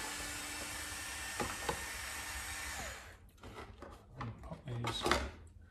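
Cordless electric screwdriver running steadily as it backs screws out of an RC car chassis, stopping about three seconds in. After it come a few clicks and knocks of parts being handled.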